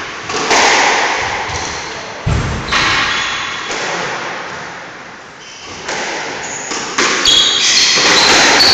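Squash ball and racket hits and thuds echoing off the squash court's walls, with short high squeaks of trainers on the wooden floor near the end.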